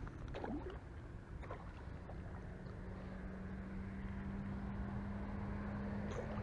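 A hooked peacock bass being fought at the surface of shallow water: water sloshing under a low rumble of wind on the microphone. A steady low hum runs from about two seconds in.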